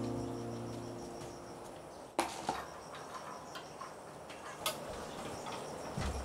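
Background music fading out, then scattered sharp clicks and light knocks from a lampshade being fitted to a ceiling light and a stepladder being handled, the loudest click about two seconds in.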